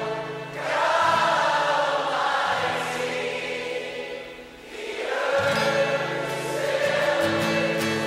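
Slow worship music: a choir singing long held phrases over steady low instrumental notes, with a brief lull about four and a half seconds in.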